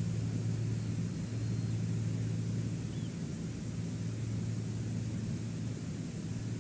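Steady low drone with a constant hiss, and one faint short chirp about three seconds in.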